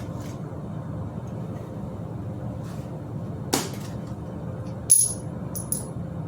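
Two sharp metallic snaps, a few seconds apart, the second with a brief high ring and followed by small clinks, as the crushed seat's metal rails are cut through; a steady low hum underneath.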